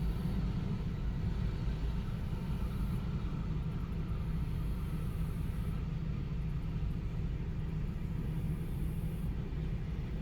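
Heavy diesel construction machinery running steadily, a continuous low rumble.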